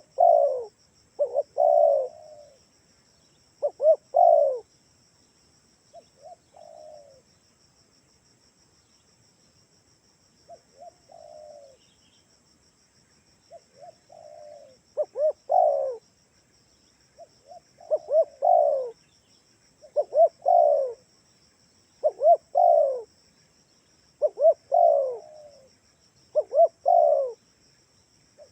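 Spotted dove (tekukur) cooing over and over. Each phrase is a few short notes running into a longer coo, about every two seconds; the phrases go fainter for several seconds in the middle, then come back loud.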